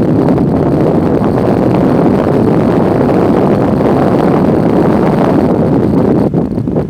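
Wind buffeting the microphone: a loud, steady rush that drops away a little about six seconds in.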